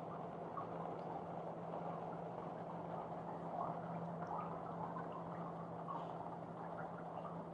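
Rain falling steadily, with water dripping and trickling and small scattered drop ticks. A steady low hum runs underneath.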